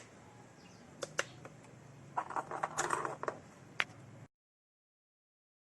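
A series of small, sharp mechanical clicks and a short rattly cluster of clicks, then the sound cuts out to dead silence about four seconds in.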